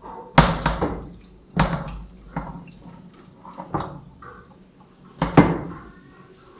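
Kitchen sink sounds: dishes knocking, with water running and dripping. There are about five sharp clatters, each ringing briefly.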